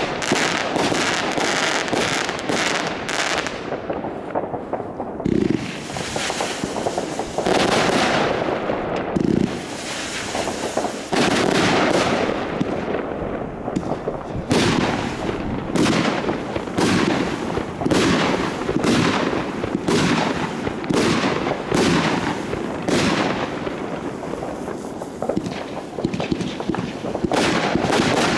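Consumer fireworks batteries firing: a rapid series of bangs and crackling bursts, settling into roughly one report a second in the second half.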